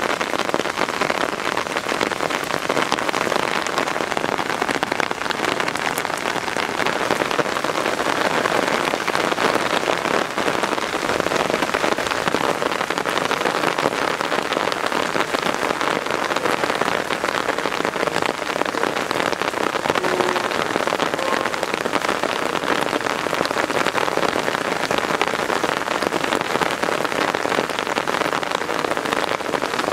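Heavy rain falling steadily onto hard surfaces in a downpour, an even hiss of patter with no breaks.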